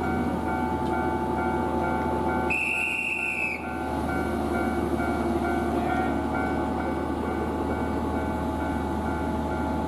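Japanese level-crossing warning bell dinging in a steady, even rhythm while a Shizuoka Railway train runs past with a low rumble. The train gives one horn blast of about a second, a little over two seconds in.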